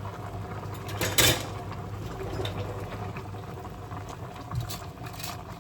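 Pot of water boiling with Korean potato-starch glass noodles cooking in it, bubbling steadily under a low steady hum. A short loud clatter about a second in.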